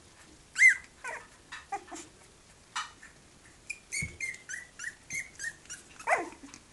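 Three-week-old Cavalier King Charles Spaniel puppies yipping and whimpering as they play-fight: a sharp high yelp about half a second in, a quick run of short squeaky yips in the middle, and a longer whine falling in pitch near the end.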